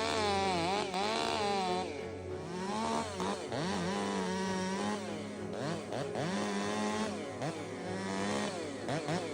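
Chainsaw revving up and easing off again and again, its pitch climbing sharply, holding briefly, then falling, as the throttle is opened and released.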